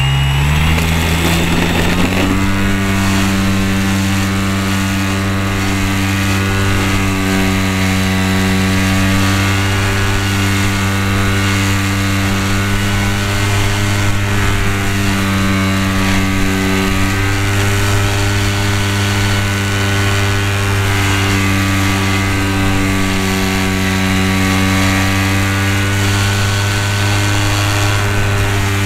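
Model Tiger Moth biplane's motor and propeller, heard from a camera mounted on the plane: it spools up over the first two seconds at takeoff, then runs as a steady drone in flight, with a rush of air underneath.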